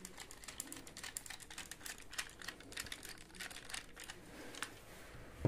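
Quiet, rapid, irregular small clicks and rustles of hands working wires into a plastic circuit breaker's terminal, ending in a single louder knock.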